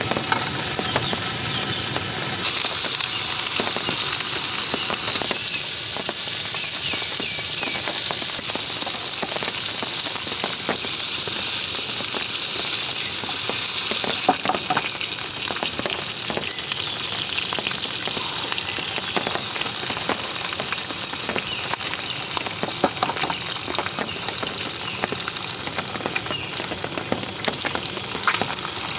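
Bacon and eggs sizzling and crackling as they fry in a pan, with a dense, steady hiss.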